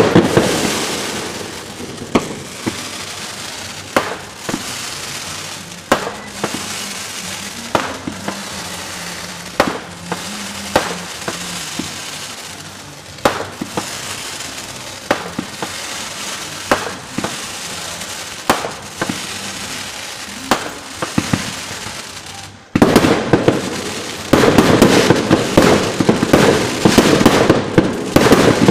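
Fireworks going off: a loud bang at the start, then separate sharp bangs every second or two as shells burst. In the last six seconds these give way to a dense, continuous crackling barrage of rapid pops.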